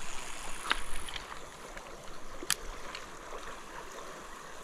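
Steady rush of shallow river water, with two sharp clicks, one under a second in and one about halfway through.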